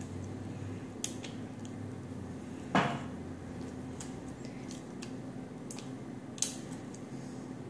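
Small clicks and light clatter of plastic Lego jewelry pieces and a metal ball chain being handled at a tabletop, with a louder knock about three seconds in and another click near the end, over a steady low hum.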